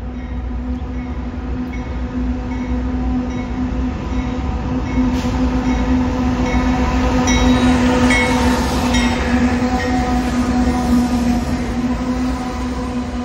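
Freight train passing: a steady, pitched diesel locomotive drone over a low rumble, growing louder through the middle and easing off near the end, with a regular ticking about every half second.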